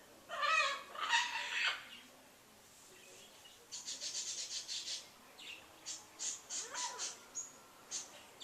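A large caged pet bird crying repeatedly: two loud, harsh calls in the first two seconds, then after a pause a fast run of short high-pitched notes, followed by a slower string of short high notes.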